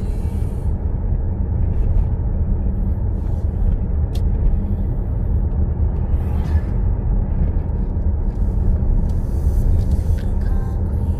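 Car driving along: a steady low rumble of road and engine noise.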